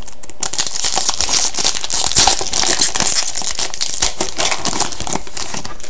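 Crinkling foil wrapper of a hockey card pack being torn open and crumpled, a dense crackle lasting about five seconds.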